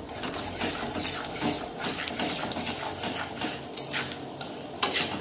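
Whole cumin seeds, dried red chillies and bay leaves sizzling and crackling in hot mustard oil in a kadai, with a metal spatula stirring and scraping against the pan, a few sharper knocks near the end.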